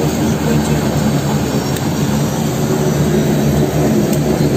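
Seaplane engines running, heard inside the cabin: a loud, steady drone with a low hum.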